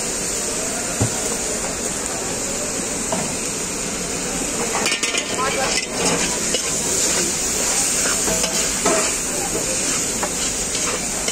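Noodles and cabbage sizzling in a large wok, with metal spatulas scraping and clattering against the pan as the chowmein is tossed; the clatter gets busier about halfway through.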